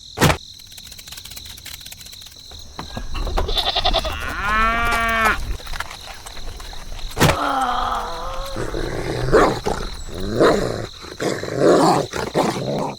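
Animal calls: a long wavering bleat-like call about four seconds in, a falling call a few seconds later, then several shorter calls near the end.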